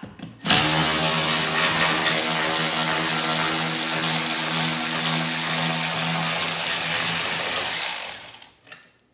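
Milwaukee M12 3/8-inch cordless ratchet running steadily for about seven seconds with an even motor whine, backing a bolt out of a TV wall mount. It trails off about eight seconds in as the trigger is let go.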